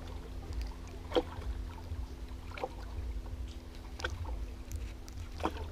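Steady low rumble of open-air noise under a faint steady hum, with four small clicks and taps from hands handling a fishing rod's line and hook, the loudest about a second in.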